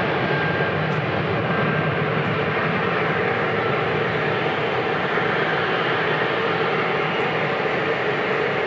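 Jet aircraft engines running with a steady rushing noise, a faint high whine early on.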